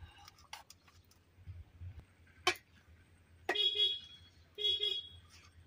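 Metal cookware clinking as rice is served from an aluminium pot, with one sharp clink about two and a half seconds in. A vehicle horn honks twice, each toot about half a second long, about three and a half and four and a half seconds in.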